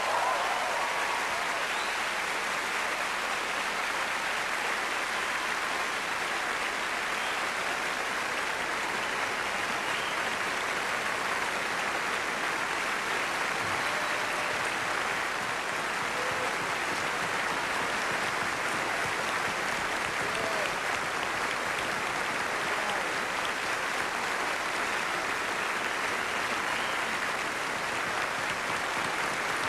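A large concert-hall audience applauding in a long, steady ovation, with a few faint shouts now and then.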